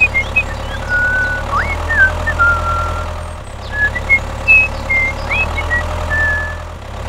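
Tractor engine running steadily with a low, even hum, with a string of short high chirping notes, several sliding upward, scattered over it.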